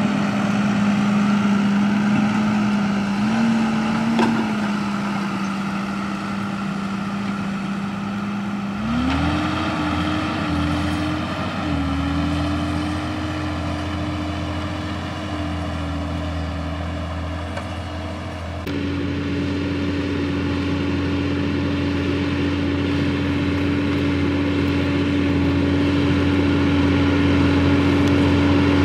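John Deere 6170R tractor's six-cylinder diesel engine running steadily under ploughing load. Its pitch rises about a third of the way in and holds at the higher speed.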